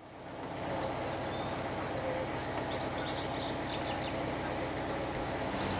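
Birds chirping and calling over the steady low running of a narrowboat engine, fading in over the first second.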